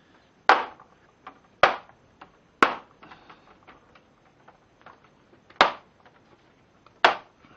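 Metal E-Torx sockets being pushed hard into the tool kit's plastic socket holder, each one going in with a sharp click or snap: five loud clicks with smaller ticks of handling between them.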